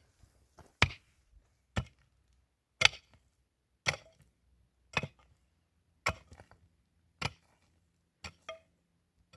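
Sharp chopping blows, evenly paced at about one a second.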